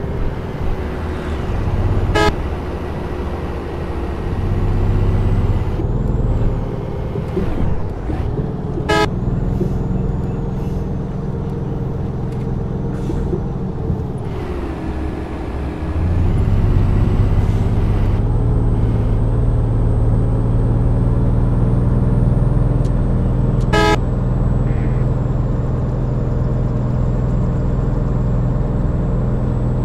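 Road vehicle engine running steadily on the move, growing louder about two-thirds of the way through. Three brief horn toots are spread across it.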